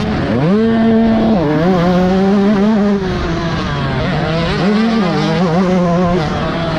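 Yamaha YZ125 single-cylinder two-stroke motocross engine, heard from a camera on the bike, revving hard under racing throttle: the revs climb and hold high, drop briefly at each throttle lift or gear change, and climb again, several times over.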